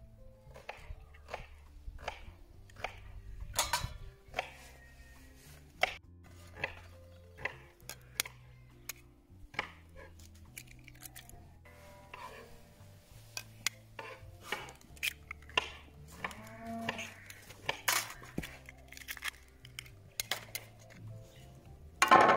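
Eggs being cracked one after another with a knife blade over metal pans: a steady run of short, sharp taps and clicks of steel on shell and pan. Near the end comes one louder clank against a pan with a brief ring.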